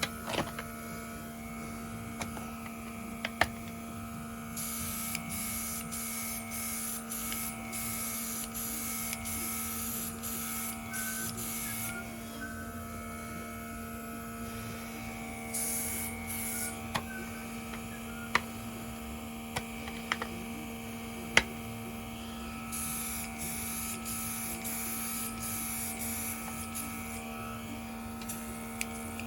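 Small airbrush compressor humming steadily while a nail art airbrush sprays paint in three spells of hiss, the first and last several seconds long and a short one in between, with a few sharp clicks.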